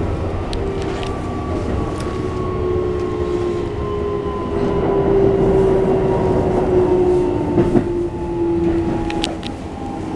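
Toyo IGBT-VVVF inverter and traction motors of a Keikyu New 1000 series train, heard from inside the car. Their whine sinks slowly in pitch as the train slows, over steady wheel-and-rail rumble with a few sharp clicks.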